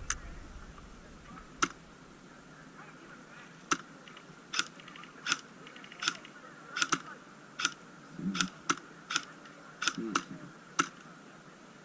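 Airsoft rifle firing single shots, a dozen or so sharp clicks about half a second to a second apart, coming faster after the first few.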